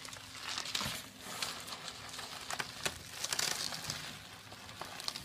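Plastic bubble wrap crinkling and rustling as a small chihuahua wriggles along a carpet inside a tube of it, with scattered sharp crackles.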